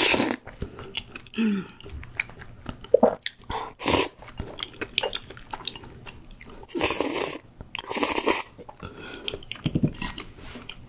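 Close-miked slurping of spaghetti in a thick rosé cream sauce. Four long slurps come near the start, about four seconds in, and twice more around seven to eight seconds in, with soft wet chewing in between.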